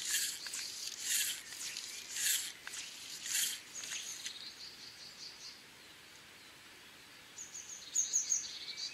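Fly line swishing through the air in four false casts about a second apart, then small birds singing quick high chirps, loudest near the end.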